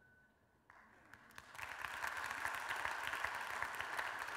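Audience applauding. The clapping starts faintly about a second in and grows to a steady applause.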